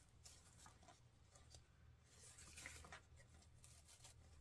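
Faint rustling and crinkling of wired fabric ribbon as loops are pinched and twisted by hand, over a steady low hum.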